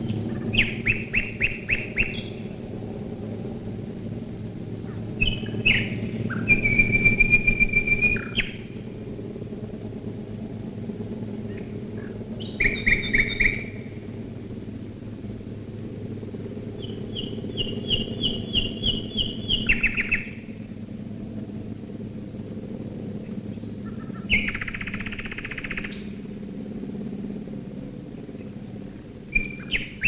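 Common nightingale singing in short phrases of rapid repeated notes and held whistles, with pauses of a few seconds between them. Beneath the song runs the steady low drone of massed Wellington and Lancaster bomber engines passing overhead.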